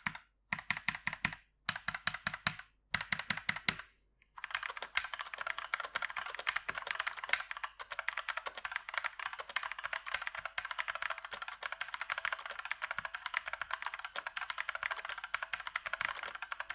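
Typing on a Tecware Ignite mechanical keyboard with Outemu brown (tactile, non-clicky) switches. A few short bursts of keystrokes with pauses between them, then continuous fast typing from about four seconds in.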